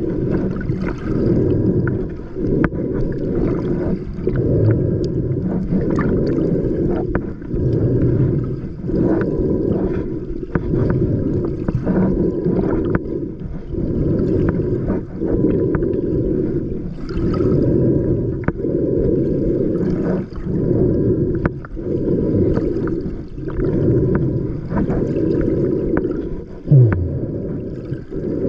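Muffled water sloshing and gurgling, swelling and fading about once a second, with a short falling low tone near the end.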